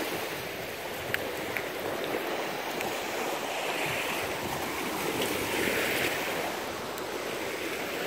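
Small wind-driven waves washing onto a sandy river shore with a steady rush of wind, the wash swelling twice, about four and six seconds in.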